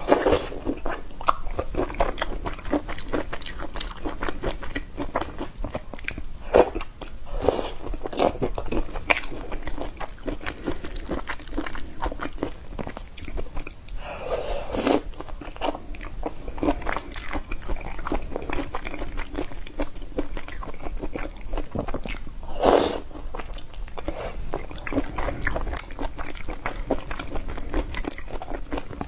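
Eating sounds: biting and chewing whole shrimp in a spicy red sauce, with crisp crunches of the shells all the way through and a few louder bites about fifteen and twenty-three seconds in.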